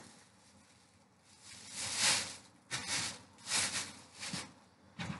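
Thin plastic bag rustling and crinkling as it is handled and opened, in several irregular bursts after a quiet first second.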